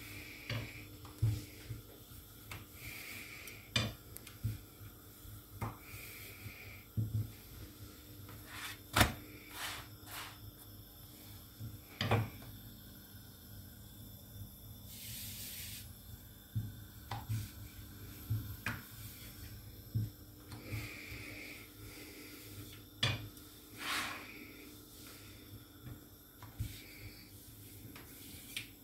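Kitchen handling sounds: scattered knocks and clinks of a frying pan and utensils, with a brief hiss about halfway through.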